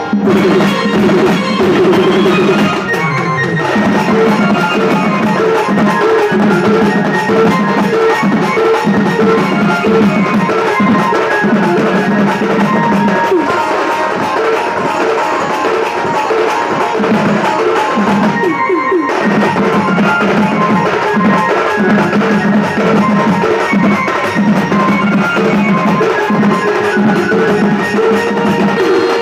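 Karmi (Karma-festival) melody music with a steady drum beat and a repeating pulsed bass line, played loud through a DJ sound system. The music thins briefly about three seconds in and again near nineteen seconds.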